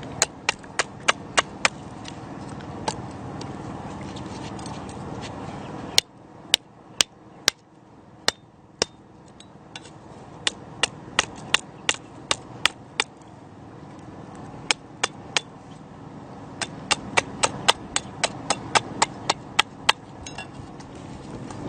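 A series of sharp knocks in quick runs of several, about three a second, with short pauses between runs, over a steady rushing background noise.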